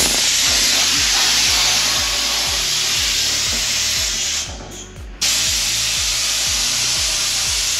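Compressed air blasting from the gun inside a sandblast cabinet, a loud steady hiss. It cuts off about four and a half seconds in and starts again abruptly under a second later.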